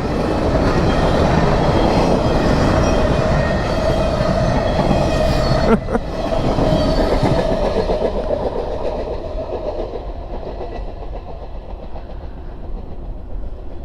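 Empty freight train's cars running past on the rails with thin steady tones over the rumble; the sound fades over the last several seconds as the end of the train moves away.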